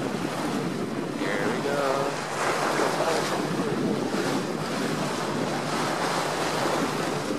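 A speedboat under way: wind buffeting the microphone over the steady rush of water and the boat's engine. A voice is briefly heard about two seconds in.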